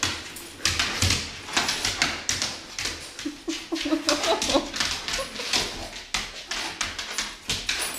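An excited dog jumping and scrabbling on a hardwood floor, its claws and paws clicking and tapping many times, with a short whine about three to four seconds in.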